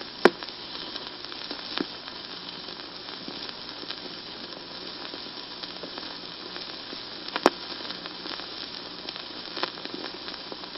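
Steady hiss with faint crackle and a few sharp clicks, the loudest click about seven and a half seconds in.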